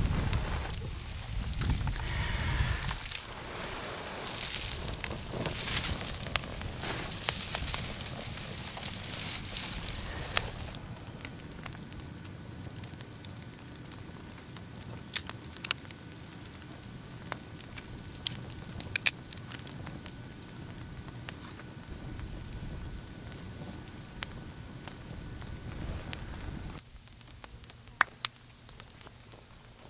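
A handheld bundle of dry grass tinder rustling and crackling densely as it catches flame, then settling to scattered sharp pops and crackles from about ten seconds in. A faint, steady insect trill sits high in the background throughout.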